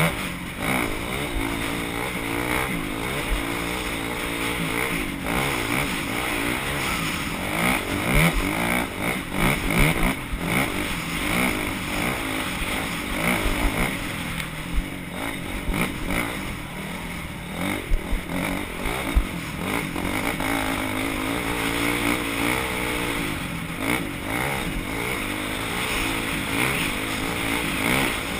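Motocross bikes racing round a dirt scramble course, their engines revving up and down as they go through the gears and corners. There are several short low thumps in the middle.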